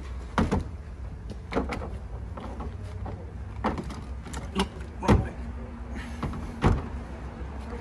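Heavy AGM car battery being set down and shifted in the car's trunk battery tray: about half a dozen hard plastic knocks and clunks, the loudest about five seconds in, over a low steady hum.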